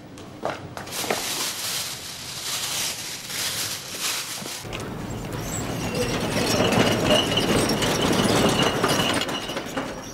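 Plastic bags crinkling and rustling as they are handled and stuffed. After a sudden change about four and a half seconds in, it gives way to a louder, steady rumbling rattle of a small wheeled hand cart rolling over concrete pavement.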